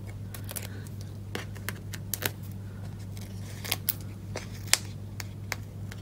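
Fingernails picking and peeling the release papers off foam adhesive dimensionals stuck to a cardstock panel: irregular small, sharp paper clicks and ticks, the loudest about three-quarters of the way through, over a steady low hum.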